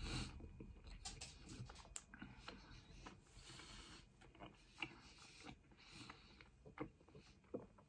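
Faint close-up chewing of pizza with the mouth closed: soft wet mouth clicks and smacks, with a few sharper clicks in the second half.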